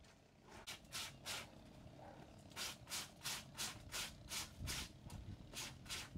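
Wet fabric being scrubbed by hand in soapy water in a metal basin: short rubbing strokes, a few about a second in, then a steady run of about three a second.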